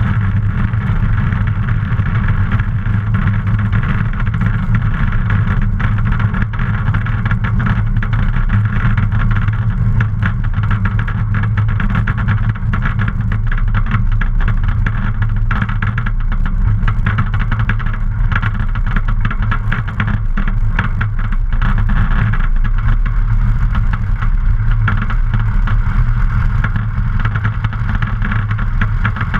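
Luscombe light aircraft's piston engine and propeller running steadily at low power while the plane rolls on a grass airfield.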